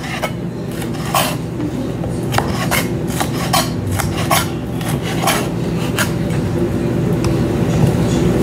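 Chef's knife slicing bell peppers into strips on a cutting board: irregular sharp taps of the blade hitting the board, about one to two a second, over a steady low hum.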